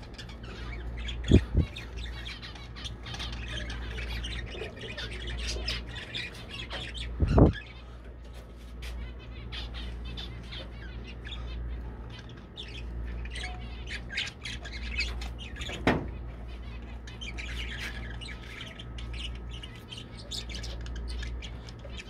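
Budgerigars chattering and chirping in many short, busy calls. There are a few sharp knocks: about a second in, once near seven seconds and once near sixteen seconds, all over a steady low hum.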